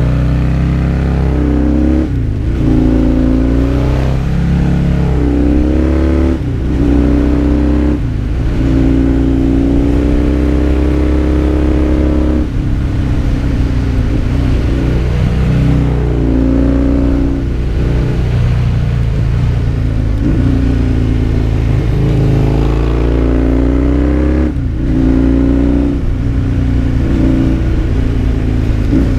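Husqvarna Nuda 900's parallel-twin engine pulling up through the revs and dropping back in short breaks every few seconds, as on gear changes or rolling off the throttle. A more even, wavering stretch runs through the middle. Wind noise sits underneath.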